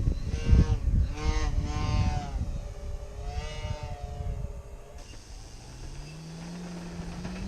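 Electric motors and propellers of radio-controlled model planes flying past: a whine that swells and bends in pitch, with wind rumble on the microphone. About five seconds in, a lower motor tone begins and slowly rises in pitch.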